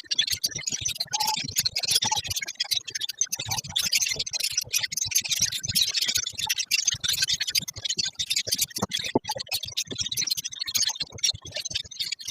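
A flock of lovebirds chattering continuously: a dense mass of overlapping shrill chirps and squeaks, with many sharp clicks.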